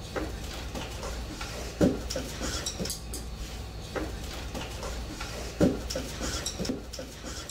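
Chopsticks and tableware clinking against a noodle bowl: a few scattered light knocks as a beginner tries to pick up udon.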